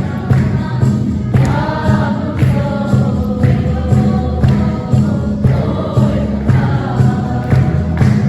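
A choir singing a gospel-style song over a steady beat with a strong bass pulse.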